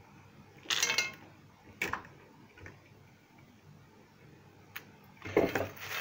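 A handful of wild blueberries dropped into a metal teapot onto rosehips and cranberries, making a short rattle just under a second in. A single light knock follows about a second later, then a few faint clicks.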